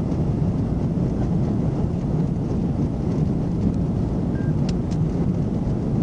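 Steady road and engine rumble of a patrol car being driven, heard from inside the cruiser, with a couple of faint ticks near the end.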